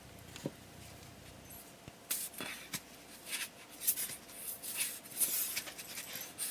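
Hands working on pieces of a wooden organizer during assembly: a small tap early, then from about two seconds in a run of light scratchy rustling and scraping with a few clicks.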